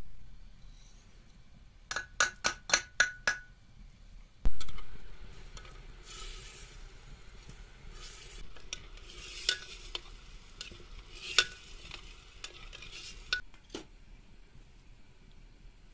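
Metal spoon on glazed ceramic: a quick run of about six taps about two seconds in and a single loud knock a moment later, then the spoon stirring and scraping inside the ceramic pot, with a few clinks against its sides.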